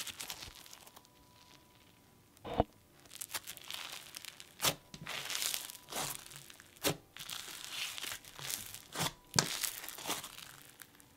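Microfloam slime being pressed and squished by hand, its tiny foam beads crunching and crackling, with several sharper pops and clicks spread through.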